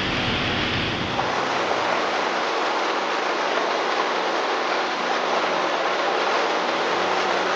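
Waterfall's steady rush of falling water. A low rumble underneath dies away about a second in.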